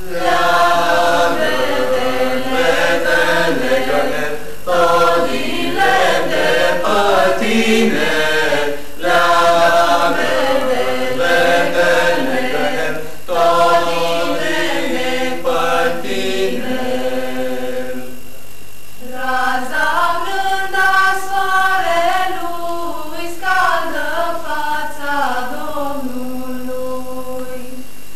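A small group of young carolers, boys and girls, singing a Romanian Christmas carol (colind) together without instruments. The singing comes in phrases with short breaks between them, the longest just past the middle.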